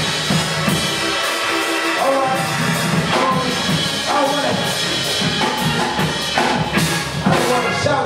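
Live church band playing upbeat gospel music, with a drum kit keeping a driving beat under sustained keyboard chords.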